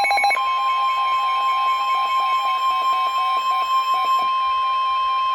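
NOAA Weather Radio emergency alert: the tail of the rapidly chirping SAME digital header burst, then the steady single-pitch 1050 Hz warning alarm tone that signals a warning is about to be read.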